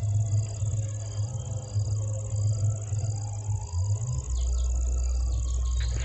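Insects chirping outdoors: a steady high trill with a regularly repeating pulsed chirp, over a low rumble that settles into a steady low hum about four seconds in.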